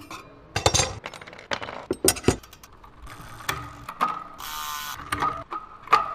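Mechanic's hand tools working on a triathlon time-trial bike's crankset and rear hub: a string of metal clicks, taps and ratcheting, with a short rasp about halfway through. This is the work of changing the chainrings.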